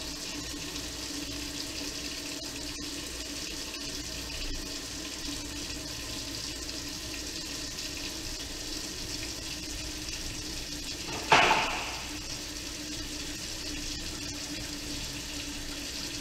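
Kitchen faucet running steadily into a sink whose clogged drain is backing up again, with a single sharp knock about eleven seconds in.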